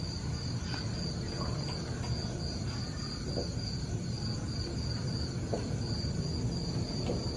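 A cricket chirping in a steady, high-pitched pulsing trill, over a low background rumble.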